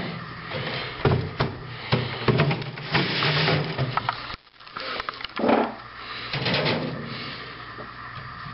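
Handling noise: irregular knocks, bumps and rubbing as the camera is moved about, with a brief dropout about halfway through.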